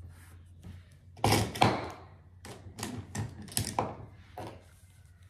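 A quick, irregular run of clicks and taps from small plastic makeup items being handled. Two louder knocks come about a second and a half in, then lighter clicks fade out.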